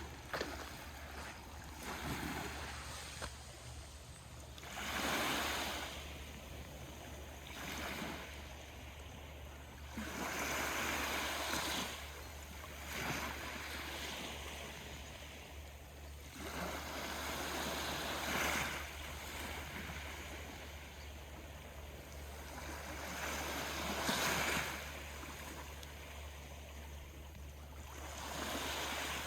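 Small Aegean Sea waves washing in, a rush of water that swells and falls back every few seconds, with a steady low hum underneath.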